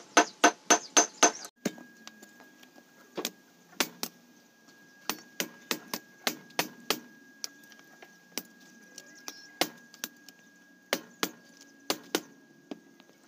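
Hand hammer striking a steel blade piece held in tongs on an anvil, each blow ringing: a fast, even run of loud blows, about four a second, stops about a second and a half in, followed by sparser, lighter and uneven hammer taps on a small steel stake.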